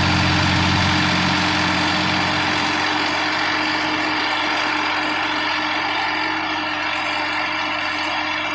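Sonalika DI 50 RX tractor's diesel engine running as the tractor works its way up a muddy bank; its deep hum drops about a second in and the engine runs on steadily.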